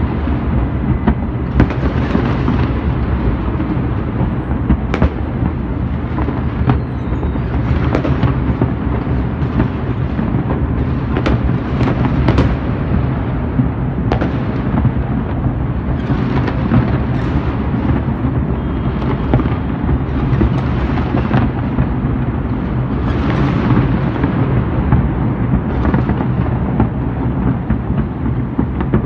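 New Year fireworks going off across a city: a constant rumble of booms with frequent sharp bangs throughout.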